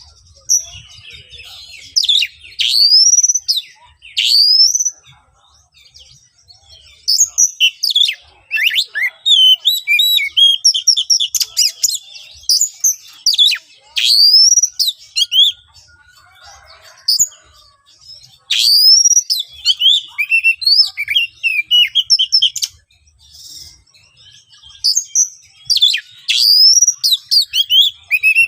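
Oriental magpie-robin (kacer) singing loud, harsh phrases of rapid sweeping whistles and chattering notes, in bursts broken by short pauses.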